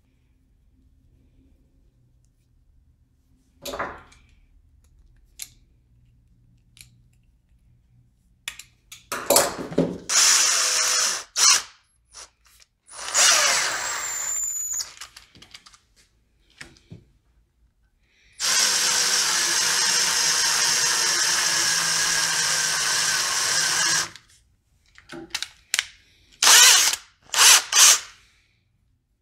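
Cordless drill spinning in several bursts to twist stainless steel lock wire into a twist-wire loop around a rod held in a vise. There are a few short runs, then one steady run of about five seconds past the middle, and two quick spins near the end.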